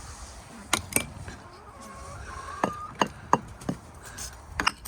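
Irregular sharp taps and knocks, about eight in all and some in quick pairs. A soft, thin chicken call comes around two seconds in.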